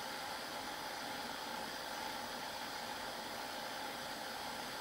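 Steady faint hiss of room tone and microphone noise, with no distinct sounds in it.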